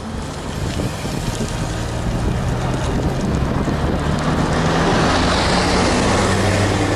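Wind rushing over a bicycle-mounted camera's microphone while riding, with a bus coming up from behind and overtaking. Its engine and tyre noise grow steadily louder, peaking about five to six seconds in.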